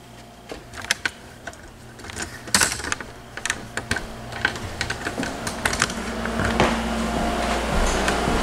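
Irregular light clicks and knocks, several a second: footsteps and handling knocks as someone walks with a handheld camera across tile and then wooden floors. A steady low hum comes up in the second half.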